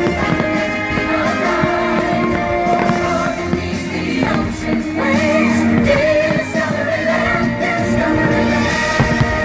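Loud fireworks-show soundtrack music with singing, and firework bursts cracking through it now and then.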